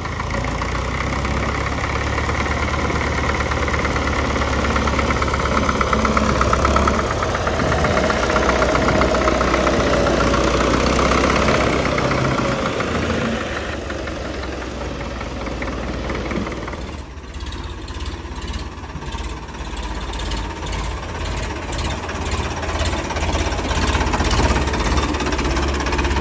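Diesel tractor engines running. First a red Belarus tractor's engine runs steadily as it drives along. After a sudden change about two-thirds of the way through, a tractor engine chugs with a more uneven, knocking beat; a Ford 3600 is in the picture near the end.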